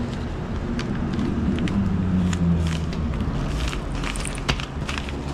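Padded paper mailing envelope being handled and pressed on a glass counter: scattered crinkles, rustles and small clicks, the sharpest click about four and a half seconds in, over a steady low hum.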